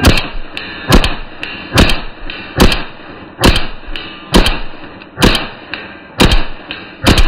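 A .22 LR pistol with a muzzle compensator firing a rapid string, played back in slow motion. There are nine shots, each with a ringing tail, about one a second, with fainter clicks between them.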